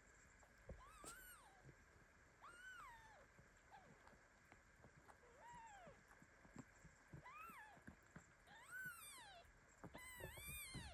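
Newborn kittens mewing: about seven short, high-pitched calls that rise and fall in pitch, coming closer together near the end. They are protesting at being pressed under the mother cat lying on top of them.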